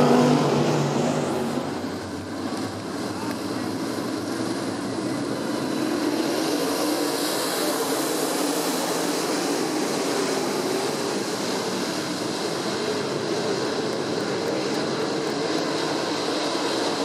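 A pack of dirt-track race cars running laps, their engines making a dense, steady wash of noise. A loud car close by fades away over the first two seconds, then the field's engine noise holds steady.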